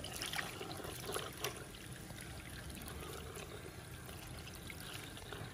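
Tap water running steadily into a sink basin, splashing over a wet cloth held and rinsed under the stream, with a few brief splashes early on.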